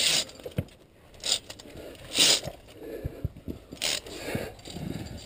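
Via ferrata carabiners scraping and clinking along the steel safety cable as a climber moves up the rock, with three short bursts of hiss about two seconds apart.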